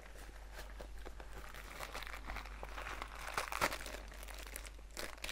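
Clear plastic bag of cables crinkling and rustling as it is handled, with small clicks; the crinkling is loudest a little after three seconds in.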